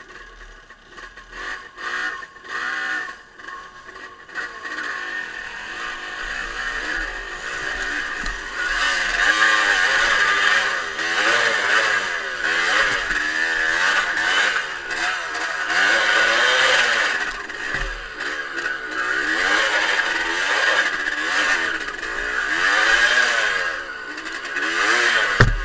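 Trail motorcycle engine revving hard under load on an uphill climb, its pitch rising and falling again and again with the throttle. It grows louder after the first several seconds.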